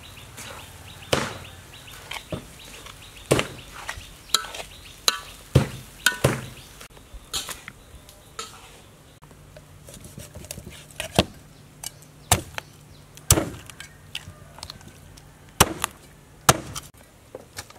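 Knife chopping raw chicken on a wooden cutting board: sharp, uneven knocks, often one or two a second with short pauses between clusters.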